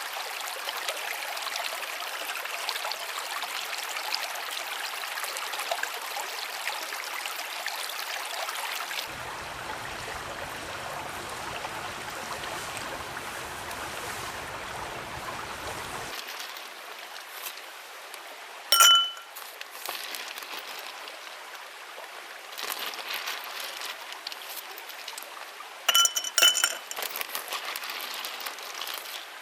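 Steady water-like hiss, then a glass clinks sharply with a brief ringing tone a little past halfway, followed near the end by a quick cluster of several more ringing clinks, as with ice and a glass while a highball is made.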